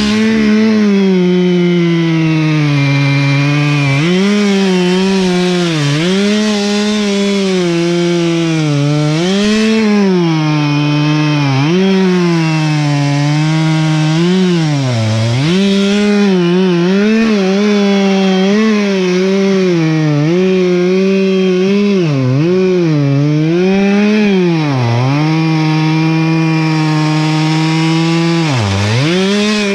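Two-stroke Stihl chainsaw running at high throttle, cutting into the base of an ash trunk. Its engine note dips in pitch every second or two as the chain loads up in the wood, then climbs back.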